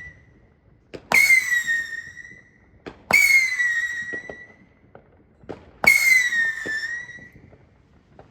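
Backyard fireworks whistlers going off: three shrill whistles about two to three seconds apart, each starting suddenly, sliding slightly down in pitch and fading over about a second, with small pops between them.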